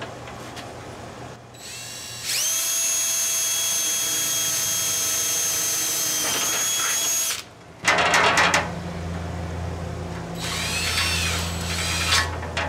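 A power drill drilling: a steady high whine for about five seconds, a brief stop, then a loud rough burst and a lower, wavering run whose pitch dips and recovers.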